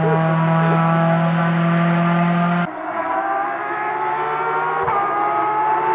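Rally car engine held at high, steady revs, cut off abruptly about two and a half seconds in. Then a quieter car engine climbs slowly in pitch as it accelerates, with a single knock about five seconds in.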